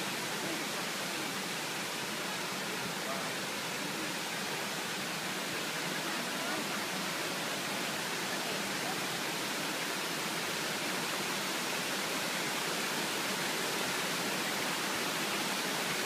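Shiraito Falls, a broad, low curtain of many thin streams of spring water spilling over a rock wall, making a steady, even rush of falling and splashing water.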